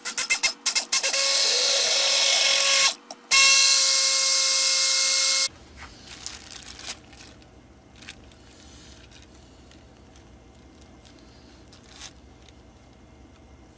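Handheld stick blender mixing soap batter of lye and oils. It gives several short pulses, runs steadily for about two seconds, stops briefly, then runs again and cuts off about five and a half seconds in.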